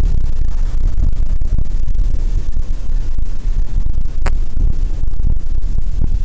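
Wind buffeting the microphone, a loud, fluttering low rumble, with a single sharp click about four seconds in.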